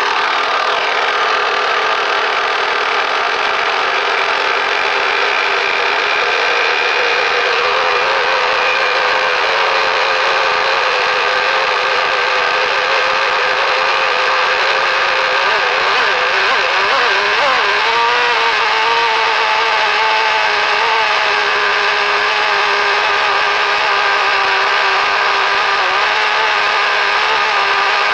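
Nitro glow-fuel engine of an RC boat idling steadily with the boat out of the water, just after a pull start. Its pitch wavers briefly about two-thirds of the way through, then settles a little lower.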